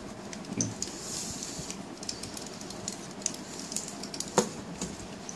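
Light clicks and scrapes of a hard-plastic action figure being handled and picked at with a snap-off utility knife, with a brief scrape a little after a second in and a sharper click about four and a half seconds in.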